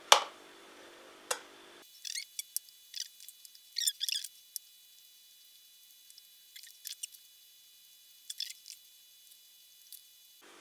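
Soaked prunes being split and pitted by hand: scattered small clicks and ticks in short clusters, with one sharp click just at the start.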